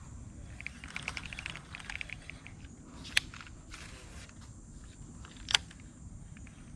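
Light rustling and small clicks of an angler handling a baitcasting rod and reel while moving through wet grass, with two sharp clicks, the louder one about five and a half seconds in.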